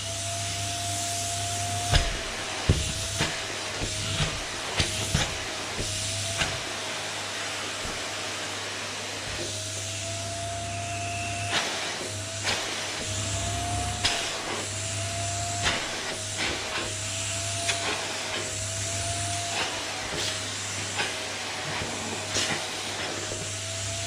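Vacuum cleaner running steadily, its motor whine wavering slightly in pitch, with scattered short knocks and bumps throughout.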